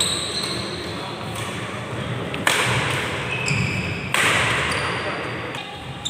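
Badminton rackets striking the shuttlecock during a doubles rally: three sharp hits about a second and a half to two seconds apart, each echoing in a large hall.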